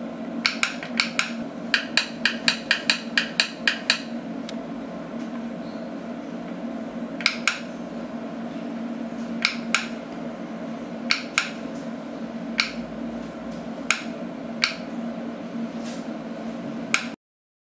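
Kinetic-energy wireless wall switches being pressed by hand, each rocker press giving a sharp snap from the built-in generator that powers the switch's radio signal. A quick run of clicks comes in the first four seconds, then single clicks and pairs every second or two, over a steady low hum.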